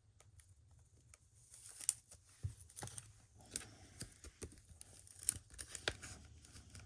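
Faint crinkling and rustling of a soft plastic card sleeve as a baseball card is slid into it, with scattered light clicks and scrapes that start about two seconds in.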